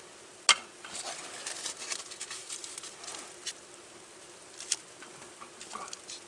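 Cooking sounds from a cheese fondue heating over a camp fire or stove: scattered small crackles and ticks over a faint steady hum, with one sharp click about half a second in.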